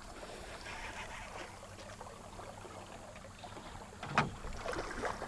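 Steady rush of river current and water around a small fishing boat, with one sharp thump about four seconds in as the landing net comes down toward the water.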